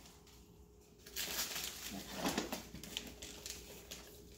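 Gift wrapping paper rustling and crinkling in irregular bursts as a present is unwrapped by hand, starting about a second in.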